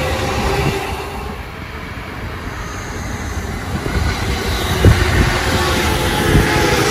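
An electric commuter train rumbles past on the rails. The sound eases for a moment, then grows as the next train comes in, and its wheels knock twice over rail joints near the end.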